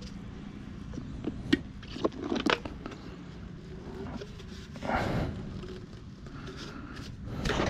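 PVC pipe and fittings being handled and fitted together while solvent-cemented: a few light plastic clicks and knocks around two seconds in, and a short rubbing scrape about five seconds in.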